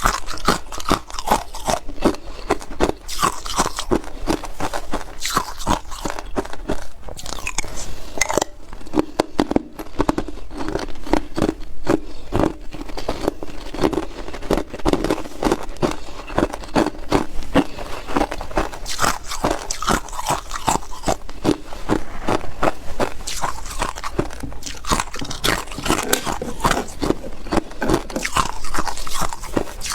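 Ice being bitten and chewed: a fast, unbroken run of sharp crunches.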